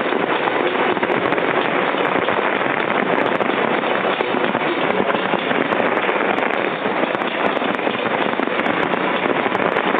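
Fireworks display: a dense, steady crackle of many small pops, like heavy rain, with no single big bang standing out.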